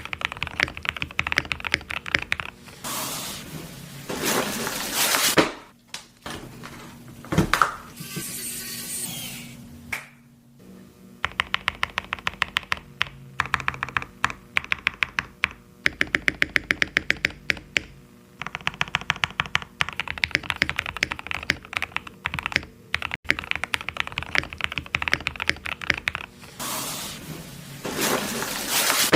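Mechanical keyboard fitted with Prevail Nebula switches being typed on: runs of rapid key clicks in several bursts with short pauses between, and a few stretches of denser rushing noise.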